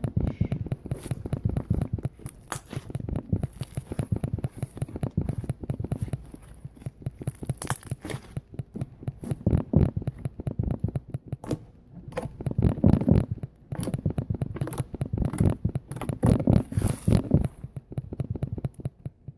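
Butter slime, clear slime with clay mixed in, being squished and worked for ASMR: a dense run of sticky crackles, small pops and squelches. It comes in waves with several louder spells and dies away at the very end.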